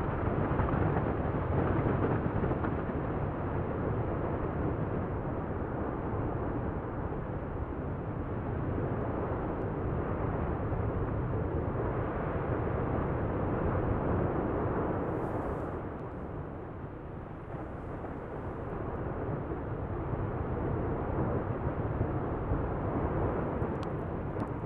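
Lava fountain erupting from a volcanic vent: a steady, dense rushing rumble that surges in level and eases for a few seconds just past the midpoint.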